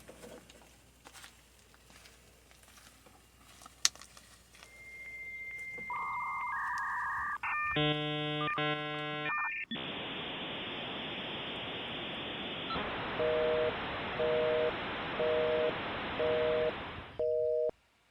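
Dial-up modem handshake sound: a steady tone and short chirps, a rapid stepped run of tones, then a long hiss with a two-note beep repeating about once a second, cutting off suddenly near the end.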